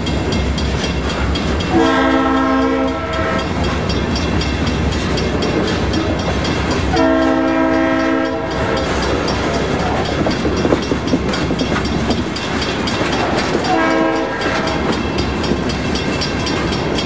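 Freight train locomotive horn sounding two long blasts and then a short one, over the steady noise of the passing train and its rhythmic wheel clicks on the rail joints.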